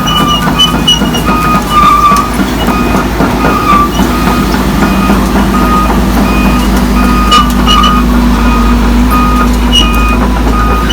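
Diesel engine of a Volvo excavator running steadily under a repeating beeping travel alarm, the warning that the machine is moving.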